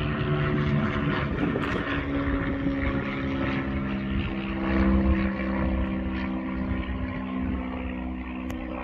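SU45 diesel locomotive's engine running under load, a steady drone whose note rises about two seconds in, over a low rumble with a few faint clicks.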